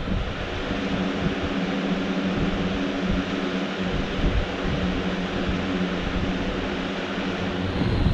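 Steady mechanical whir with a constant low hum.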